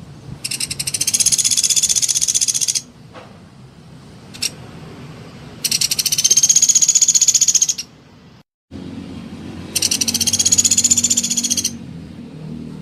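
Pelatuk beras (a small pied woodpecker) giving three long, rapid, high rattling trills of about two seconds each, with short pauses between them.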